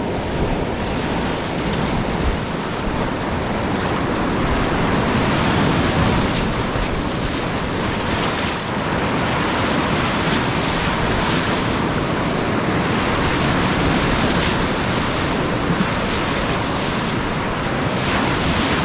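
Whitewater rapids of the Ötztaler Ache rushing: a loud, steady wash of water noise.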